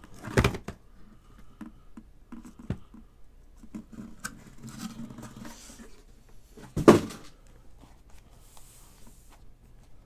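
Hands handling boxes on a tabletop: light rustling and clicks, with two solid knocks, one about half a second in and one about seven seconds in, over a faint steady low hum.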